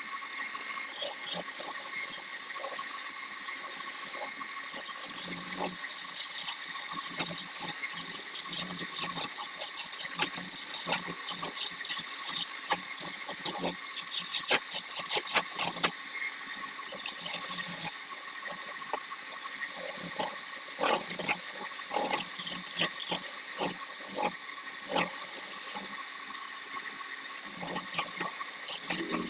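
Wood lathe running with a steady whine under dense, irregular clicking and rattling, as a turning tool cuts the spinning wood.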